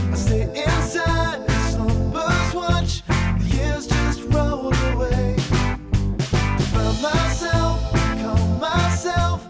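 A pop-rock song playing, with a strong bass and steady beat and a singing voice.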